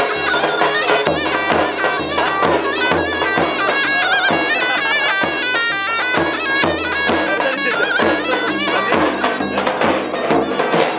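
Live folk dance music: a davul, the large double-headed drum, beaten in a steady rhythm under a shrill, nasal reed pipe playing an ornamented melody.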